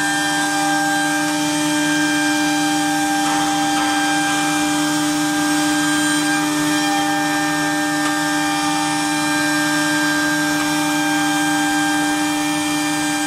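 CNC router spindle running at a steady pitch while its bit cuts a groove in a wood sheet, with an even hiss of cutting under the whine.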